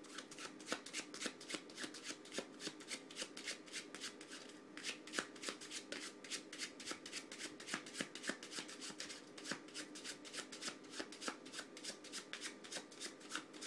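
A worn deck of playing cards being run through an overhand running shuffle, a fast, even patter of cards slapping and sliding off the pack, several a second, to work fanning powder into the card edges.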